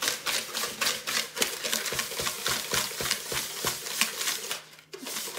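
Metal wire whisk beating a gritty mixture of brown sugar, sugar and coconut oil in a plastic mixing bowl: rapid, even scraping strokes, about four or five a second, with a short break near the end.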